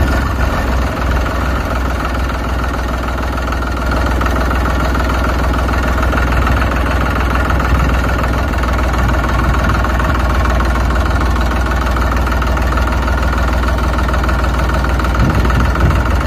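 Tractor engine running steadily with a deep, even rumble.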